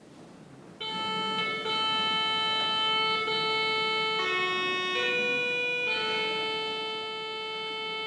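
Organ playing held, steady chords that begin about a second in and change every second or so: the instrumental introduction before the choir begins to sing.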